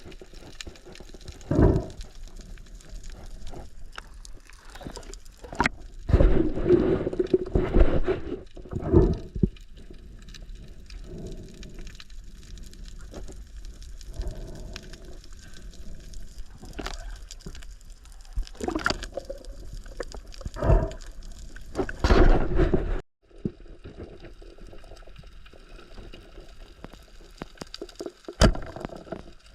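Water sloshing and gurgling with several louder splashing swells, the dull muffled sound of water around the microphone during a dive. There is a brief dropout about three-quarters of the way through.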